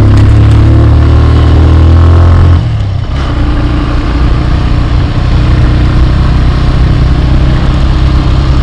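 Motorcycle engine running as it pulls up a hill road, with a loud low drone that drops away suddenly about two and a half seconds in, after which the engine runs on more evenly and a little quieter.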